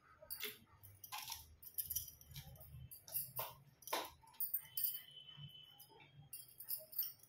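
Small metal jewellery clinking and jingling as it is picked up and handled: a string of short, light metallic jingles and clicks, the loudest about four seconds in.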